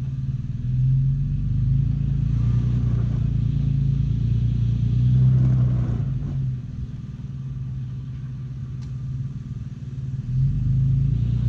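Toyota FJ Cruiser's 4.0-litre V6 running at low revs under load as the truck crawls up over a large boulder. The throttle swells over the first half, eases back after about six and a half seconds, and picks up again near the end.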